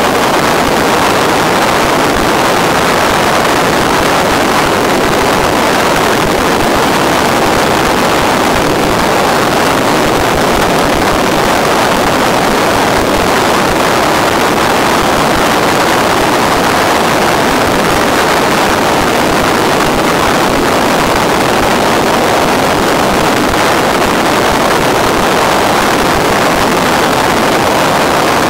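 Steady, even rushing noise with no pitch in it, holding at one level throughout, on the audio of a model plane's FPV video feed.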